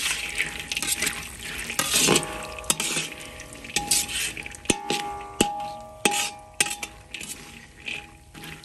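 A perforated steel skimmer scrapes and knocks against a large iron wok, stirring cashews and pistachios frying in ghee, over a steady sizzling hiss. The wok rings briefly after the harder knocks, several times from about two seconds in.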